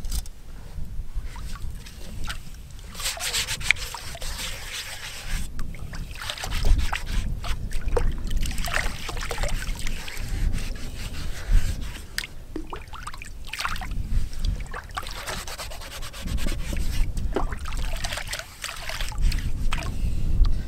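A metal camp pan being scrubbed by hand in lake water at the shore: steady rubbing and scraping with water splashing and trickling, and a few sharp clinks.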